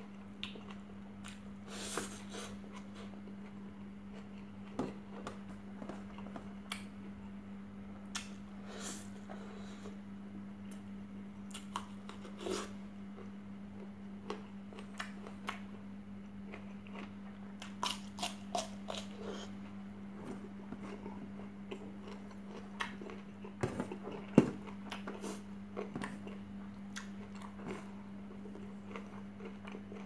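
Close-up eating sounds: a person chewing rice and chicken eaten by hand, with wet mouth smacks and scattered sharp clicks at irregular intervals, over a steady low hum.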